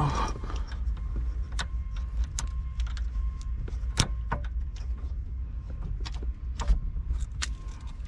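Keys jangling, with scattered sharp clicks, as the key is worked in a newly fitted ignition lock cylinder in a 2001 Chevy S10 steering column. The cylinder won't seat or turn properly, which the owner puts down to having installed it wrong.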